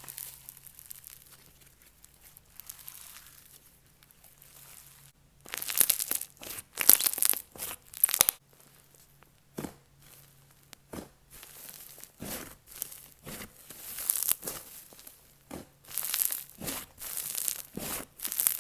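Butter fizz slime mixed with black snow fizz base and crunchy chip chunks being squeezed and pressed by hand, giving irregular bursts of sizzly, crackly fizz. The first few seconds are nearly quiet, and the bursts start about five seconds in.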